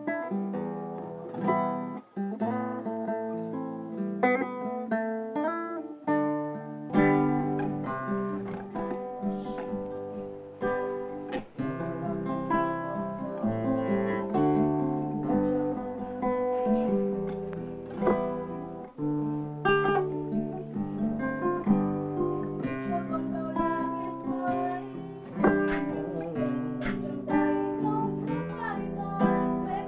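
A nylon-string classical guitar is strummed and picked as the accompaniment to a man singing a slow song. A deeper bass part joins about seven seconds in.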